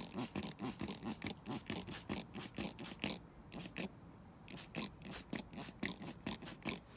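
Hand-held plastic trigger spray bottle being pumped quickly, a fast run of short hissing sprays about three or four a second, with a brief break about halfway through.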